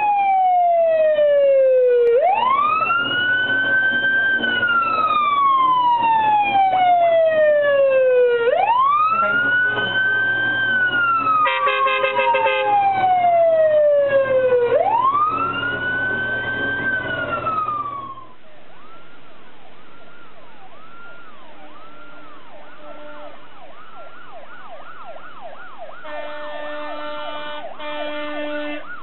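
A 1985 Dennis DF135 fire engine passes with its siren wailing slowly, a quick rise then a long fall about every six seconds, over the engine, with a short horn blast about halfway through. After an abrupt change, a quieter, fast yelping siren and a few horn blasts come from a 1986 Ford Trader fire salvage unit.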